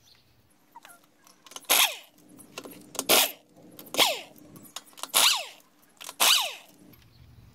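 Impact wrench spinning off a car's 21 mm lug nuts in five short bursts about a second apart. Each burst falls in pitch as the tool winds down.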